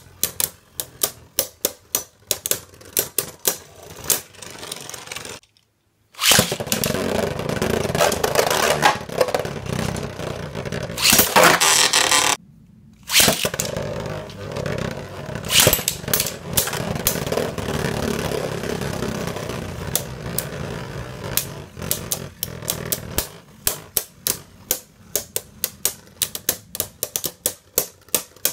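Z Achilles and Archer Hercules Beyblade Burst tops spinning in a plastic stadium, clacking against each other in quick sharp hits, several a second. Through the middle the sound becomes a continuous grinding rattle of the tops scraping on the stadium floor and walls. It drops out abruptly twice, and the sharp clacks return near the end.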